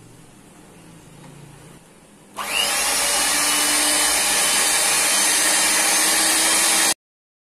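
Electric hand mixer whisking whipping cream, switching on about two seconds in with a brief rising whine as the motor spins up, then running steadily. It cuts off suddenly near the end.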